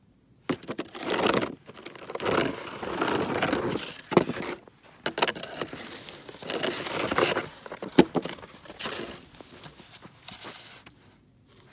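Crunching and scraping in packed snow, in uneven bursts a second or so long, with a couple of sharp knocks.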